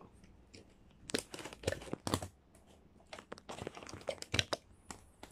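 Handling noise: irregular clicks, knocks and rustles as plug-in power adapters are pulled out of a power strip and their cords moved about.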